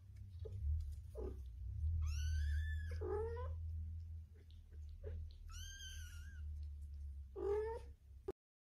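Kittens mewing: a few high, thin, drawn-out mews, with shorter, lower cries between them, over a low steady hum.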